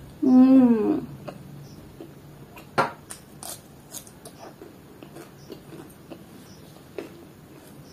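A short hummed "mm" from the eater, rising then falling in pitch, then a crisp bite into a raw cucumber slice about three seconds in with crunchy chewing after it, and soft chewing and mouth clicks.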